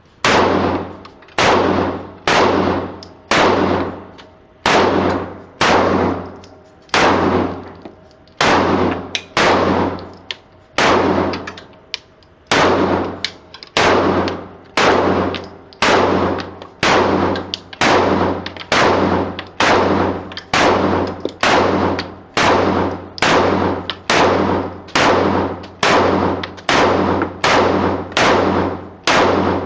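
Glock 19C pistol firing steady single shots, a little faster than one a second, about three dozen in all, each sharp report followed by a ringing echo.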